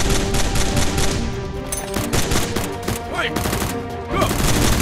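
Bursts of rapid automatic-gunfire sound effects, many shots a second, over background music.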